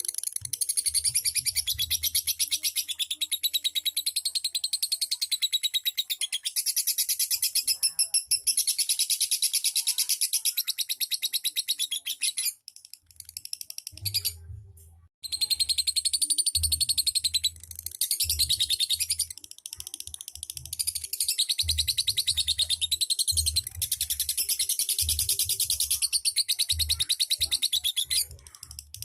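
Lovebird singing a long, very rapid, high-pitched chattering trill (the 'ngekek' song), breaking off for a few seconds about halfway through, then resuming.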